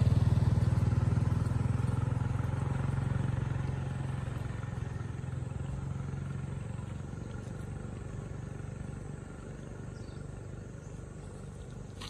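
An engine running steadily with a low hum, which fades away over the first several seconds.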